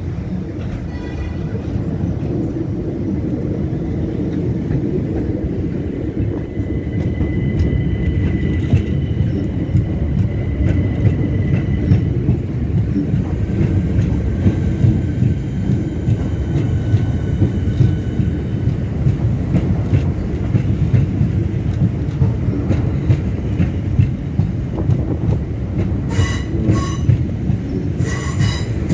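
Southeastern electric multiple-unit trains running slowly over the rails: a steady low rumble of wheels on track, with thin high wheel squeal coming and going. Near the end comes a run of sharp clicks, each with a ringing squeal.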